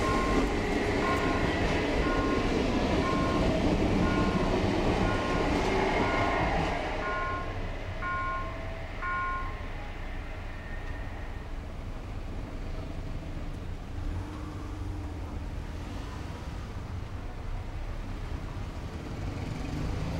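A level-crossing warning bell rings in even beats, about two a second, while the last cars of an electric commuter train run past. The train noise drops away about seven seconds in, and the bell stops about nine and a half seconds in, leaving light street traffic.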